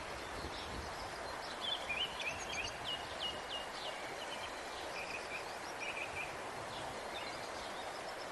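Outdoor ambience: a steady soft hiss with small birds chirping, a run of quick chirps and warbles about two seconds in and a few more around six seconds.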